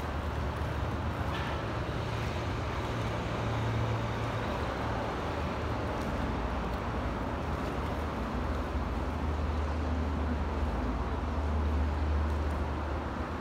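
Steady low rumble under a continuous hiss of outdoor background noise, with no distinct events.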